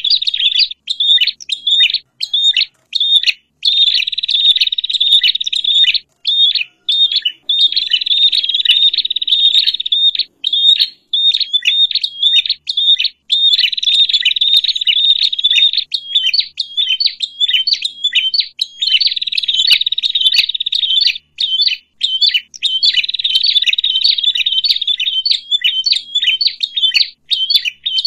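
Noisy commotion of small songbirds, prenjak (prinias) among them: dense runs of rapid, high chattering notes lasting a few seconds each, broken by short gaps.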